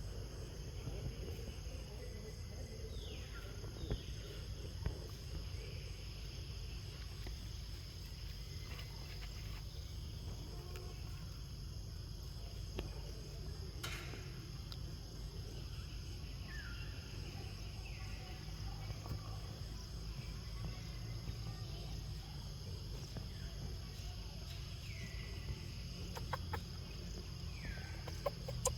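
Short high-pitched animal calls that fall in pitch, mostly in pairs, every several seconds, over a steady drone of crickets and a low rumble.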